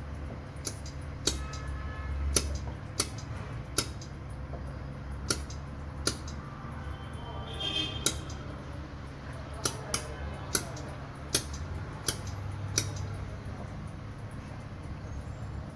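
Pulsed laser welder firing single shots on a silver ring: about fourteen sharp snaps at irregular intervals over a steady low machine hum, with a brief squeak near the middle.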